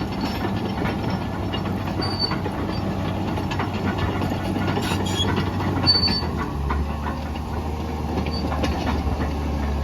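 Case 2050M crawler dozer at work: its diesel engine running steadily under load while the steel tracks clatter, with two short high squeals and a clank about six seconds in, after which the engine's hum settles lower.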